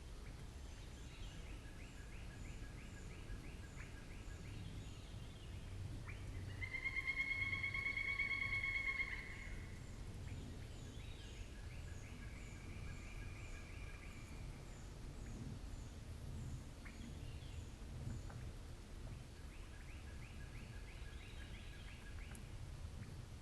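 Evening forest chorus: several birds calling and singing in repeated quick note series over a low outdoor hum, with one louder trilling call lasting a couple of seconds about seven seconds in.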